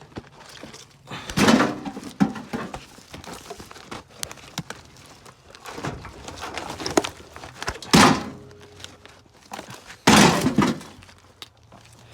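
Heavy scrap metal clunking and scraping: a series of loud irregular thuds and grinding scrapes, the longest about ten seconds in, as the truck's rear section is dragged along over dirt.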